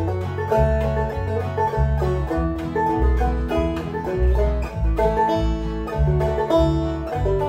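Deering Vega Little Wonder banjo played clawhammer style in the key of A, plucked melody notes over a steady backing track with a bass line.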